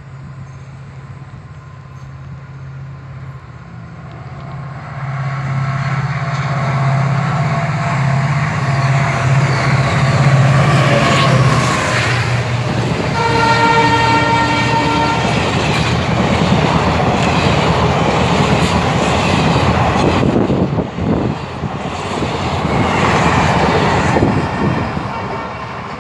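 A WDP4 diesel locomotive's two-stroke EMD engine drones low and grows louder as the train approaches. About halfway through, a horn sounds for about two seconds. The passenger coaches then run past on the rails, loud and noisy until the end.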